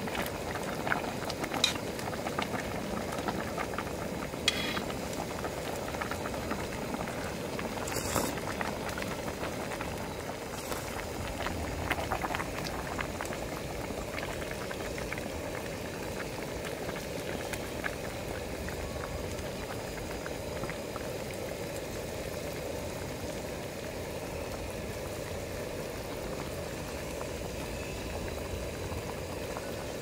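A pot of liquid boiling at a steady bubble, with a few light clicks now and then in the first half.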